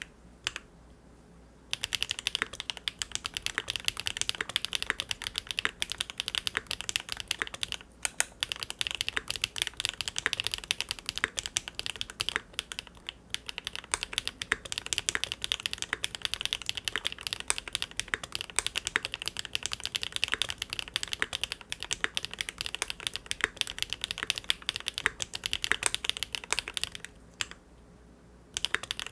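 Continuous typing on a Linworks Big Whale custom mechanical keyboard with GEON Raw Zero switches on a polycarbonate plate: a dense stream of keystrokes. It pauses briefly just after the start and again near the end.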